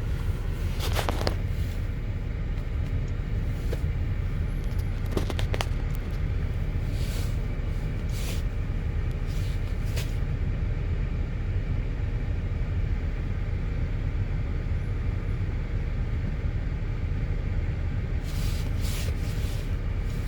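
GMC Acadia 3.6 L V6 engine idling steadily with a misfire, which the owner traced to a failing ignition coil and spark plug on cylinder 5. A few short light clicks and taps sound over it.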